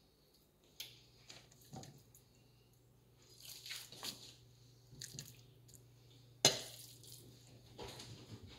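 Wet grated Jerusalem artichoke batter being spooned into a frying pan and pressed into patties with a slotted spoon: soft squishing scrapes and taps, with one sharp click about six and a half seconds in, over a faint steady hum.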